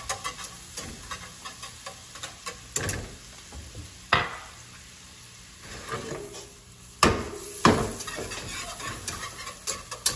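Minced garlic sizzling in butter in a skillet, with a utensil scraping and tapping against the pan. A few louder clunks, around three and four seconds in and twice about seven seconds in, as the pan knocks on the stove grate; a wire whisk clicks against the pan near the end.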